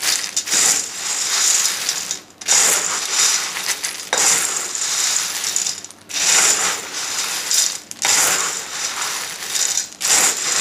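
Dry Nutri-Grain cereal pieces pouring and rattling into a bowl of peanuts and powdered soup mix, in four or five bursts with brief breaks between them.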